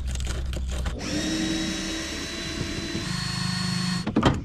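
Clicks and scrapes of a screwdriver working a plastic wheel-arch liner screw. Then, from about a second in, a small motor runs with a steady whine and hiss, dropping to a lower pitch about three seconds in and stopping just before the end.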